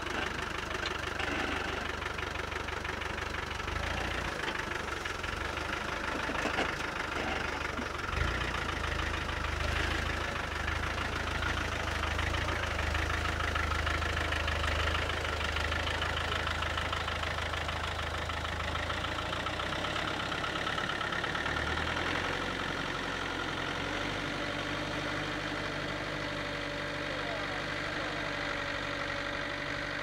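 Land Rover Discovery 1's engine running at low speed as it drives slowly across a soft, boggy field. The low engine sound grows louder about eight seconds in, eases off after about twenty seconds, and then runs evenly.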